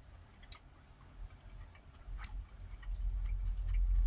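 Close-up chewing of a mouthful of rice, egg and tomato: scattered soft mouth clicks and ticks. A low rumble swells in the last second or two.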